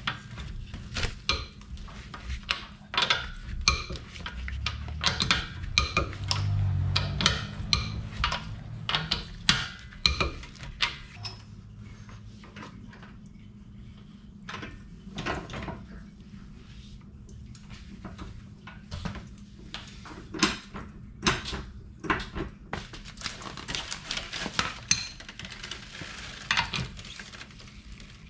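Steel lug nuts clinking and rattling against each other as they are handled, an irregular run of sharp metallic clicks.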